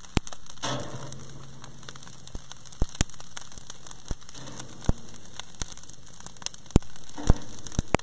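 Beef short ribs sizzling on the grate of an open wood-fire grill over live embers: a steady hiss with frequent sharp pops and crackles.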